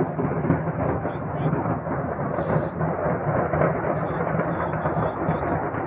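Large fire heard from a distance: a steady rumble with dense crackling, without any single distinct blast.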